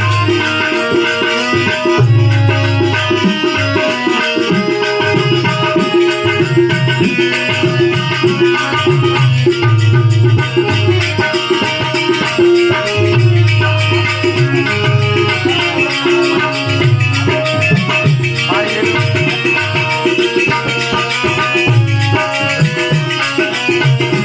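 Indian devotional folk music: an instrumental passage with tabla and a shaker-type rattle under sustained melody notes, without singing.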